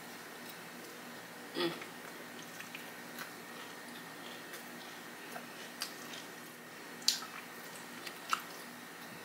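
Close-up chewing of a soft Italian sub sandwich: wet mouth clicks and smacks at irregular moments, with a few sharper ones about a second and a half in and near the end, where she bites into the sandwich again.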